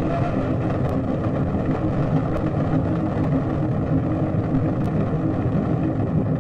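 Rocket engine at launch: a steady, dense rumbling noise with a low steady hum beneath it.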